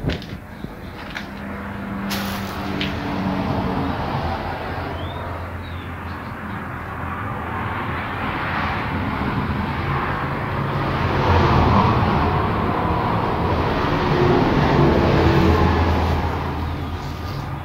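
Road traffic going by on a highway: a steady rush of tyres and engines with a low hum beneath, building slowly to its loudest about two-thirds of the way through.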